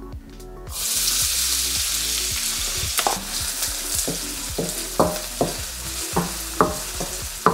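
Diced red onion dropped into hot avocado oil in a stainless steel wok, sizzling starting abruptly under a second in and holding steady. From about three seconds in, a wooden spoon stirring the onion knocks against the wok about every half second.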